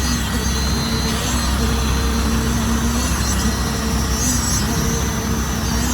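Heavy truck diesel engine running steadily at a constant pitch, a low rumble with a steady hum over it, as from the concrete equipment working the pour.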